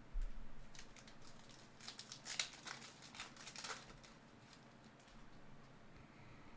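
Foil wrapper of a trading-card pack being torn open and crinkled, a faint run of sharp crackles from about a second in to about four seconds in.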